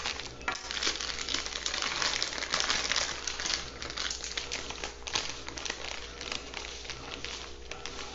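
Plastic seasoning packet crinkling as it is handled, densest in the first half and thinning out after.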